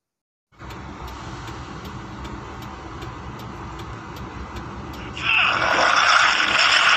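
Soundtrack of an anime fight scene playing back after a brief silence: a low rumbling sound effect, then about five seconds in a sudden, much louder rushing noise.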